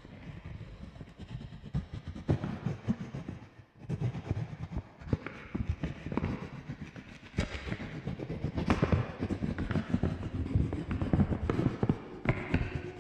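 Electronic soundscape of irregular clicks, knocks and clattering over a low rumble. It drops away briefly about four seconds in, then returns denser and louder.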